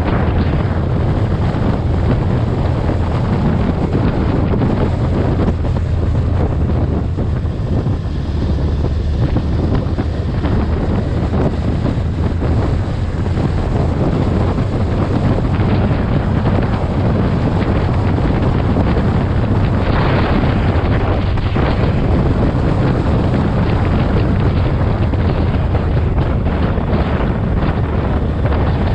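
Heavy wind buffeting the microphone of a camera on a moving motorcycle, over the low drone of the engine and road at riding speed.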